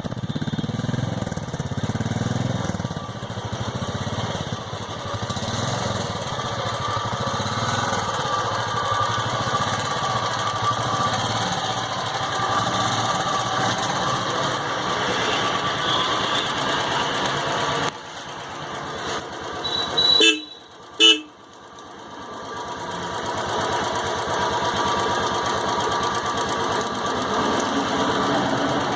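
Royal Enfield Classic 350's single-cylinder engine running through its stock silencer, with its exhaust note steady for most of the time. The sound drops about two-thirds of the way through, two short horn beeps follow, and then the engine note builds back up.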